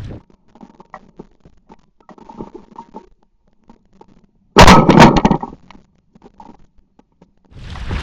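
Handling noise on the microphone: faint scattered clicks and rustles, then a loud burst of rustling and knocking about halfway through that lasts under a second. The wind noise cuts out abruptly, as if the microphone were covered.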